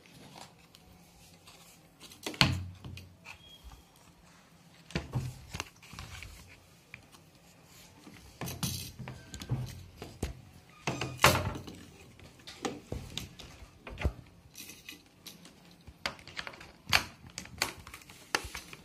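Hands handling a refrigerator thermostat and its sensing tube while fitting them: scattered knocks, taps and light clatter at irregular intervals, the loudest knock about eleven seconds in.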